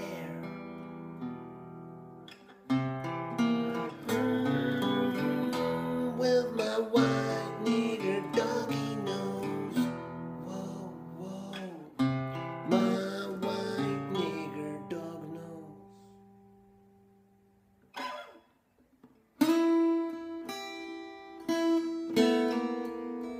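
Acoustic guitar played alone: chords struck every second or two and left to ring, dying away almost to nothing about sixteen seconds in, then single picked notes ringing out from about twenty seconds in.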